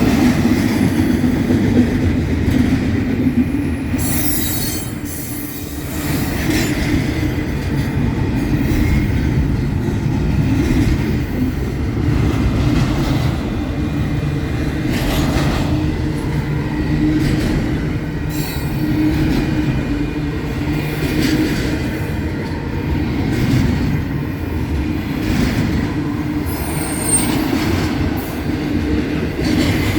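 Double-stack container freight train rolling past: a steady rumble of cars on the rails, with scattered clicks of wheels over the track and a brief high wheel squeal near the end.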